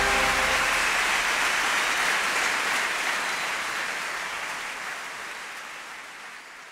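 The last held chord of a large choir and orchestra dies away in the first half-second, and a large arena audience's applause takes over, fading out gradually.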